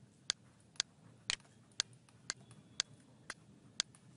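Regular ticking, evenly spaced at about two sharp ticks a second, over faint room noise.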